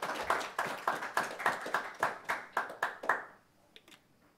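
Small audience applauding, quick even claps that stop about three seconds in.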